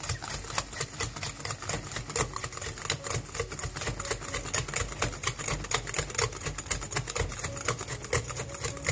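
Metal wire whisk beating eggs into creamed butter and sugar in a bowl: rapid, steady clicking and clattering of the wires against the bowl, many strokes a second.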